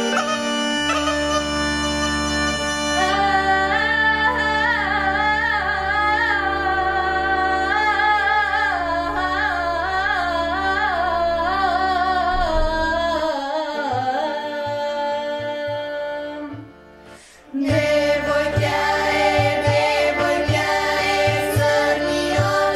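Bulgarian Shop-region folk song. A single girl's voice sings a slow melody with a wavering, quavering pitch over an instrumental backing with a steady drone. After a short break, a group of girls sings together in unison over the backing, now with a regular rhythmic beat.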